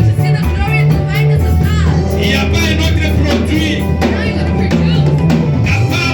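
Live band music with drum kit and bass guitar playing a steady beat, with a wavering melodic line above it.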